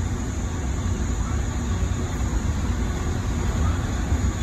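Steady low rumble inside a Tri-Rail passenger coach as the train rolls along, with no distinct knocks or changes.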